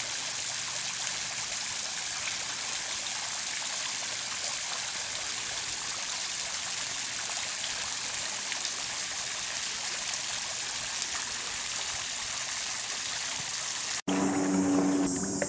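Water from the BeachGroomer Carousel's fountain spraying up and falling back onto the lake, a steady, even splashing hiss. Near the end it cuts off suddenly and a steady low hum takes over.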